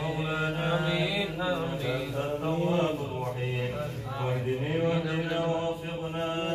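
A man chanting a Quran recitation in a melodic, drawn-out style, his voice rising and falling through long held notes.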